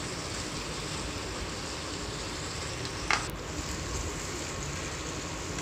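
Chicken pieces and masala frying in oil in a nonstick pan, a steady sizzle as a plastic spatula stirs them, with one sharp click about three seconds in.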